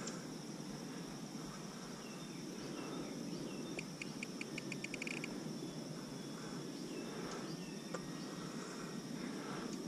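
Steady high-pitched insect chorus, crickets chirring, with a quick run of chirps about four seconds in, over a low steady rumble.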